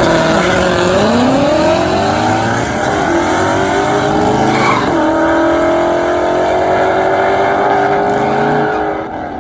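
Supercharged Mustang V8 under hard acceleration. Its pitch climbs, breaks and drops at a gear change about five seconds in, then pulls at a fairly steady pitch before fading near the end.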